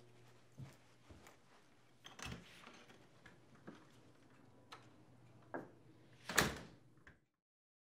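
Quiet footsteps and small clicks of handling, then a front door being opened and pulled shut; the knock of the door closing, about six seconds in, is the loudest sound.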